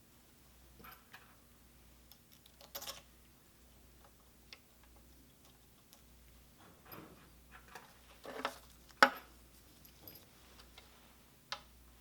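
Metal parts and hand tools clicking and clinking while a pump's valve package is handled and fitted into place: a few scattered light clicks and brief rustles, with one sharp click about 9 seconds in the loudest.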